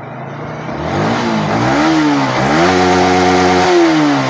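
Yamaha R15 V3's 155 cc single-cylinder engine revved from idle twice: a short blip about a second in, then a longer rev held for about a second before dropping back near the end. It runs clean, with none of the bearing-like noise that the old magnet coil (stator) had caused, now that the coil has been replaced.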